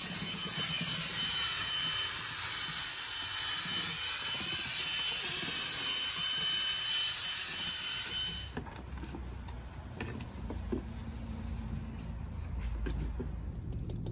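Electric drill with a paddle mixer running steadily with a high whine, stirring paint in a bucket. It stops abruptly about eight and a half seconds in, leaving a few light clicks and knocks.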